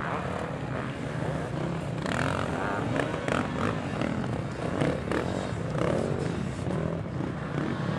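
Several vintage motocross bikes racing through a bend, their engines revving up and down together. The engines grow louder about two seconds in.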